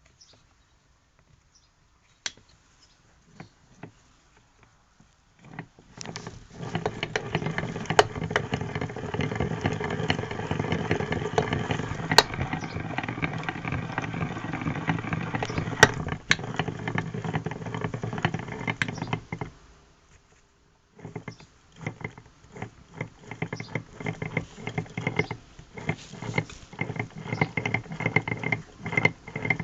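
Engine running steadily after a few faint clicks; it cuts out briefly about two-thirds of the way through, then runs again with an uneven, pulsing sound. The owner is asking whether this noise is abnormal.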